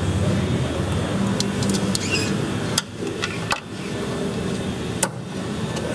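A scored rubber EVAP hose being worked by hand and cracked off its plastic connector nipple: rubbing and handling noise with sharp snaps about three and five seconds in, over a steady low hum.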